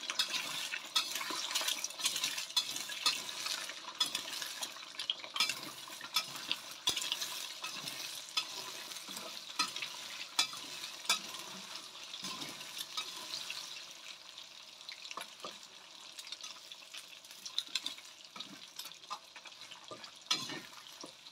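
Eggs frying in hot oil in a stainless steel wok, sizzling and crackling, with a metal spatula scraping and clicking against the pan as they are stirred. The sizzle thins somewhat in the second half.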